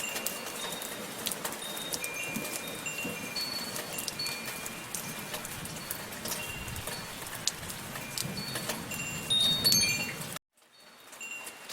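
Steady soft rain with wind chimes ringing scattered high notes over it. About ten seconds in, the sound cuts off abruptly to silence, then fades back in with the chimes and little rain.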